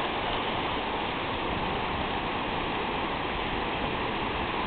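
Ocean surf washing in over the shallows, a steady wash of water with no distinct splashes.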